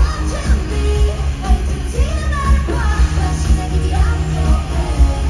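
Live K-pop song played over a stadium sound system, women's voices singing over a pop backing track with heavy bass, heard from the stands through a phone microphone.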